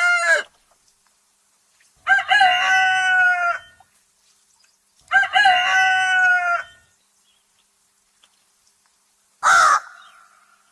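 A rooster crowing twice, each crow a pitched call about a second and a half long. A short, sharp call comes near the end.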